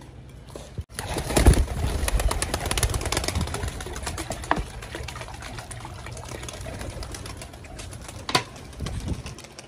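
Water poured from a plastic bottle into a metal bowl: a splashing stream that starts about a second in and keeps going, with a sharp click near the end. Domestic pigeons cooing.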